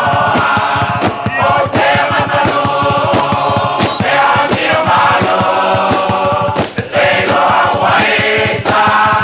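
A Samoan choir of village chiefs and orators singing together in chant-like style, with sharp beats keeping a fast, even rhythm under the voices.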